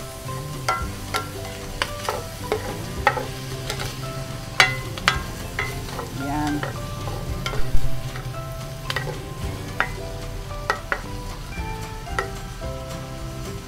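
Pork and shrimp sizzling as they sauté in a stainless steel frying pan, stirred with a wooden-handled spoon that knocks and scrapes against the pan at irregular intervals, often more than once a second.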